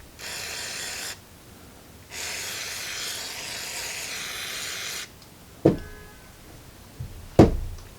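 Aerosol can of carb and choke cleaner spraying onto a carburetor float bowl: a short burst of hiss, then a longer one of about three seconds. Two short knocks follow near the end.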